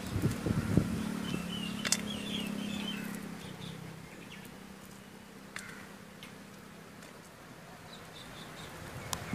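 Quiet rural outdoor ambience with faint bird chirps and a few light clicks. A low hum fades out over the first three seconds.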